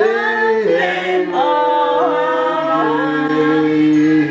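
Several voices singing a birthday song together, in long held notes that step in pitch.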